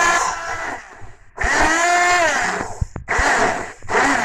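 Electric blender run in short bursts, about four pulses, its motor pitch dipping and recovering under load. It is blending eggs with salt, spices and vinegar as the first stage of making mayonnaise, before any oil goes in.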